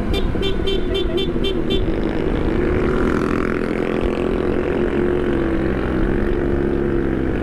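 Kawasaki ZX-10R's inline-four engine running steadily at low revs at a slow riding pace, heard from on the bike. In the first two seconds a rapid series of about eight short, high beeps.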